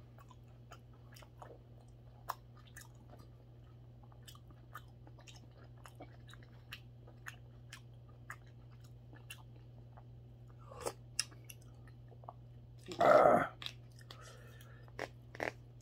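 A person chewing mackerel rice porridge, with many small mouth clicks, and one louder short mouth sound near the end.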